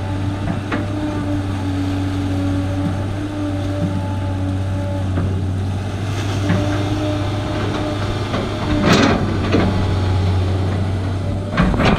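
Large excavator's engine running steadily with a low hum. Brief noisy rushes come about nine seconds in and again near the end.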